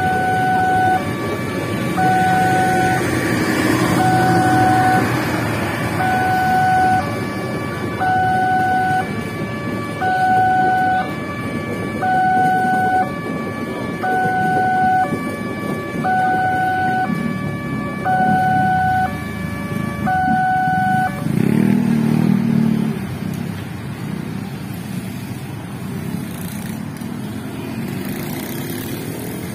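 Railway level-crossing warning alarm sounding an electronic two-tone ding-dong, the two notes alternating about once a second, over the rumble of a passenger train passing. The alarm stops about 21 seconds in, and motorcycle engines then rev up and pull away across the tracks.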